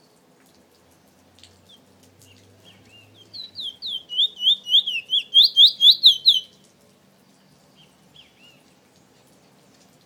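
A caged male chestnut-bellied seed-finch (Trinidad 'bullfinch') singing: a fast run of sharp, sweeping whistled notes, about five a second, for roughly three seconds, with a few soft single call notes before and after.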